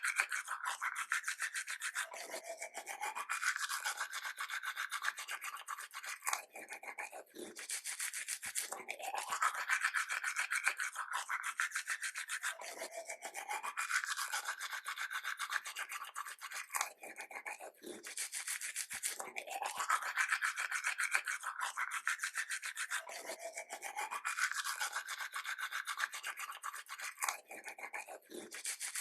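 Teeth being brushed with a toothbrush: rapid back-and-forth scrubbing strokes, going in bouts of a few seconds with brief pauses between them.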